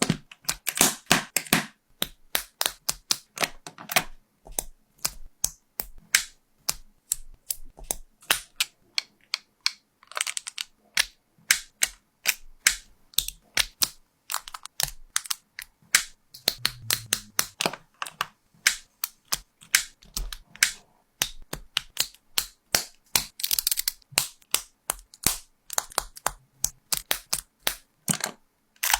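Lego bricks being handled and snapped together: a run of sharp, uneven plastic clicks, a few a second, some in quick clusters.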